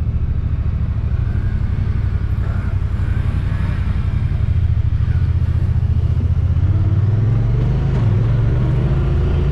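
Vehicle engine running under way, a steady low drone whose note steps up about two-thirds of the way through as it picks up speed.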